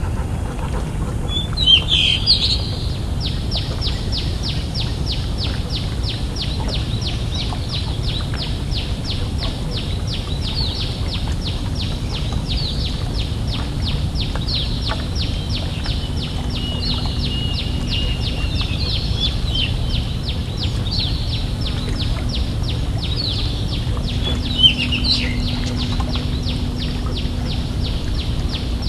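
Birds calling over a fast, even, high-pitched pulsing chirr, with two louder chirping calls, about two seconds in and near the end. A steady low rumble runs underneath, and a low hum joins near the end.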